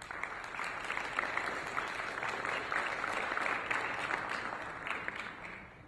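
Audience applauding: dense hand-clapping that starts suddenly and dies away after about five and a half seconds.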